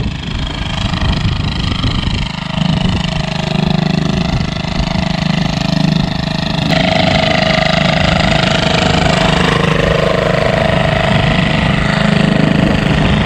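A small engine running steadily and loud, its note changing abruptly about halfway through.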